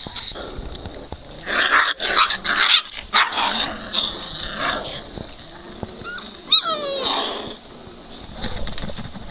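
Three-week-old Great Dane puppies play-growling and yipping in short rough bursts, with one high yelp that drops in pitch about two-thirds of the way through.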